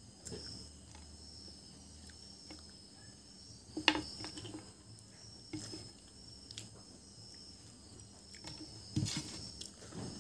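Close-up eating sounds of rice and fish curry eaten by hand: chewing, lip smacks and fingers working the rice, with several sharp smacks, the loudest about four seconds in and again near nine seconds. A steady high insect chirring, like crickets, runs in the background.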